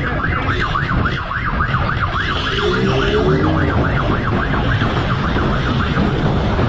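Police motorcycle siren on a fast yelp, rising and falling about four to five times a second over the motorcycle's engine and wind noise. The siren fades out about four and a half seconds in, leaving engine and wind.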